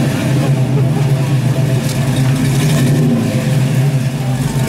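1969 Chevrolet Camaro's V8 running at a low, steady idle-speed rumble as the car creeps forward at walking pace, its exhaust note loud and even.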